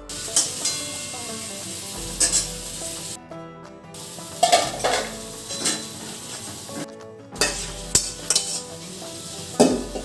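Food sizzling in a metal pan on the stove while it is stirred, with scrapes and clinks of the utensil against the pan. The sound breaks off briefly twice.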